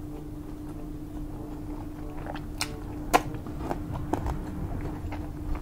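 A person chewing grilled pork belly close to the microphone, with a string of short wet mouth clicks in the second half, over a steady low hum.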